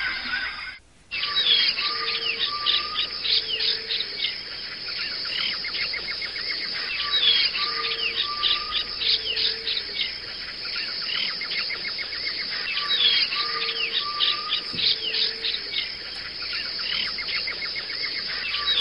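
Looped nature ambience of many birds chirping and calling over a bed of insects, the same few-second pattern repeating about every six seconds. A short dropout about a second in.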